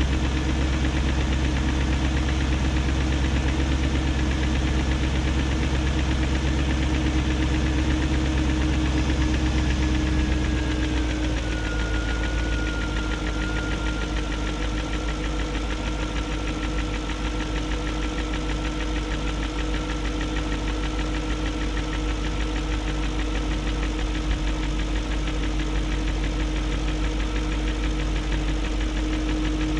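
BMW 740i's 4.4-litre M62TU V8 idling with a tick; its note drops and settles to a lower, steady idle about eleven seconds in. The tick persists despite new timing chain guides and Vanos profile gaskets, and the owner suspects the Vanos unit may have failed.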